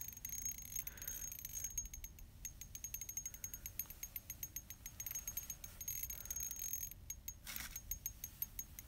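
Faint, rapid, irregular clicking of a spinning reel as a hooked pike is fought on an ultralight noodle rod with 2 lb line, with a brief scrape about seven and a half seconds in.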